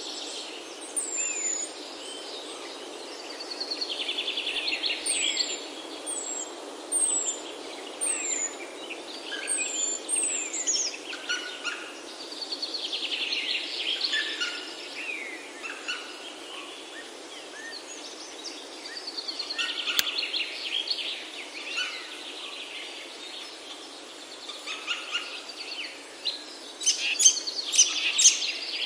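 Several birds singing and chirping over a steady hiss. There are series of short, high, falling chirps and fast trills throughout, and a cluster of louder chirps near the end.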